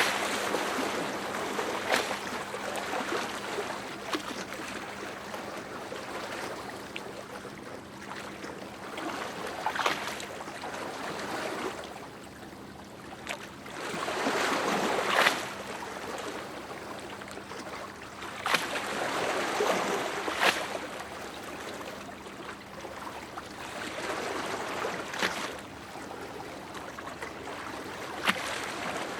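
Small lake waves lapping and splashing at the shore, swelling every few seconds with sharp slaps of water between surges.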